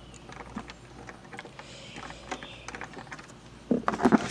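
Small plastic clicks and taps of Lego pieces as a minifigure is handled and pushed into a seat, with a louder cluster of clicks near the end.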